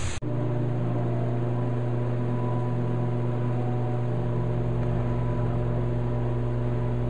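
A steady low hum of several held tones begins abruptly after a cut, with a deeper rumble joining about four seconds in.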